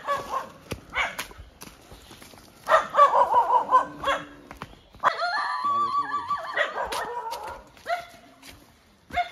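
Dog barking, echoing across the hillside: a few barks, then a quick run of barks about three seconds in, then a long drawn-out howling call about five seconds in.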